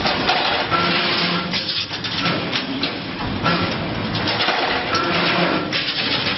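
Automatic CNC rebar stirrup bending machine running through its cycles, feeding bar through its straightening rollers and bending it with repeated metallic knocks, and a short whine that comes back every second or two.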